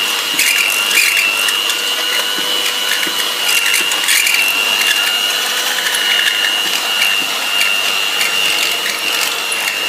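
Electric hand mixer running at a steady speed, its twin wire beaters whisking chocolate cake batter in a glass bowl: a constant high motor whine over a whirring rush, with scattered light clicks and rattles as the beaters knock the bowl.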